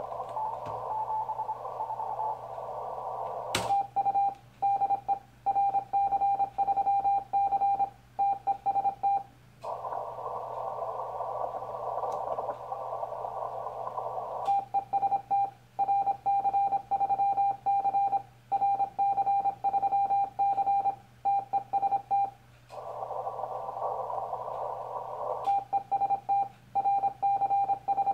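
Morse code CW sidetone from a Yaesu FT-1000MP Mark-V Field transceiver: a steady high beep keyed on and off, sending CQ calls on the 40 m band. Three runs of keying alternate with two short spells of narrow-filtered receiver band hiss as the station listens for a reply. A sharp click comes just before the first call.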